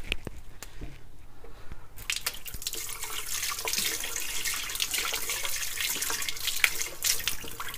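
Kitchen tap running into a sink, starting about two seconds in, with water splashing as hands are rinsed under it.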